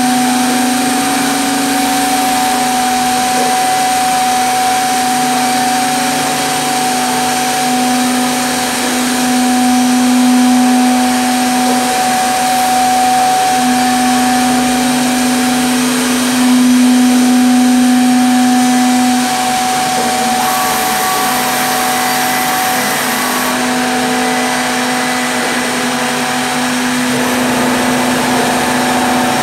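Three-spindle CNC mortising machine running, its spindle motors giving a steady high whine that swells a little now and then as the bits cut mortises into wooden chair parts. A high hiss joins in for a few seconds about two-thirds of the way through.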